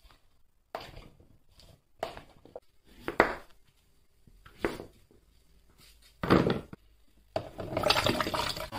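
A fork stirring and scraping lettuce leaves in a ceramic bowl, a handful of short, separate strokes. Near the end, water starts running steadily.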